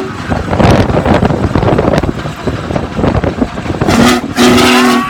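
Wind buffeting and road noise from a moving car, then a short blast and a longer, loud blast of a multi-note horn chord starting about four seconds in.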